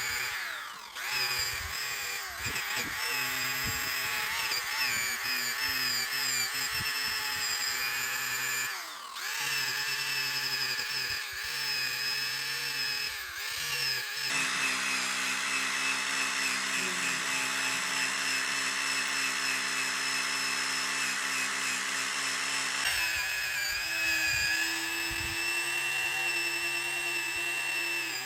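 Handheld electric power tool running steadily under load, its motor pitch and grinding noise shifting about halfway through and again a few seconds before the end.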